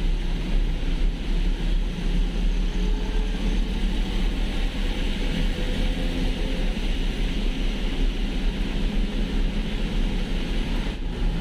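Road noise heard from inside a moving vehicle in the rain: a steady low engine hum under an even hiss of tyres on the wet road.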